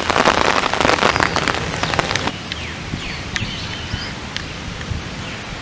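Rain pattering, densest over the first two seconds and then easing to a steady hiss, with birds chirping now and then through it.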